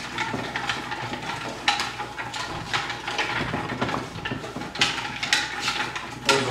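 Team draw slips being stirred by hand inside a large metal pot: continuous rustling and scraping with many small clicks against the pot.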